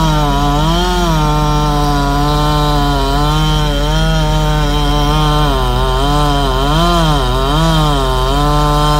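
Chainsaw running at high throttle while trimming logs with a freshly sharpened chain. Its pitch dips and recovers repeatedly, about a second in and several times in the second half, as the chain bites into the wood.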